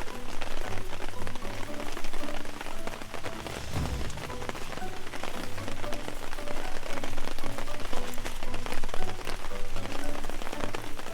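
Campfire crackling and popping with many fine, irregular snaps, under background music with held notes; a low thump about four seconds in.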